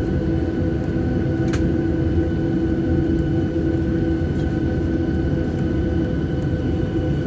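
Jet airliner engines heard from inside the cabin: a steady loud drone with a constant hum and a fainter high whine above it.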